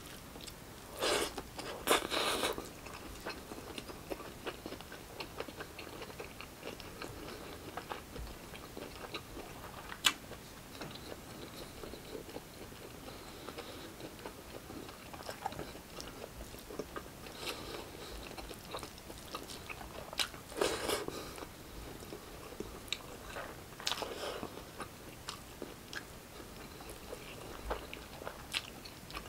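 Close-miked chewing and wet mouth sounds of a man eating rice and pork-hock kare-kare by hand, a steady patter of small clicks with a few louder crunchy bursts and one sharp click about ten seconds in.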